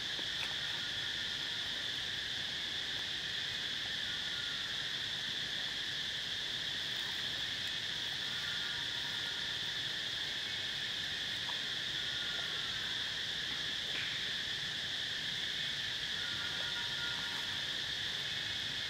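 Steady chorus of insects, a continuous high-pitched buzzing drone that does not change, with a few faint short chirps over it.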